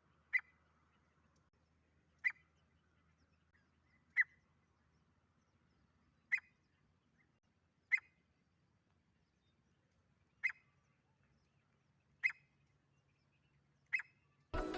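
Grey francolin giving short, sharp single call notes, eight of them spaced about two seconds apart. Music starts right at the end.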